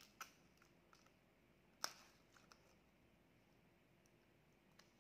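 Paper sleeve of an ice cream cone being peeled off, heard as a few faint clicks with one sharp paper tick about two seconds in.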